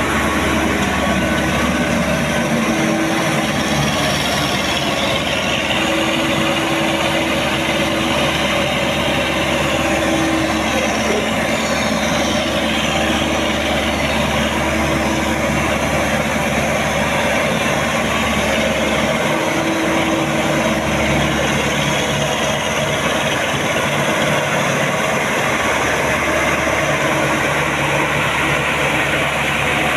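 Combine harvester engine running steadily.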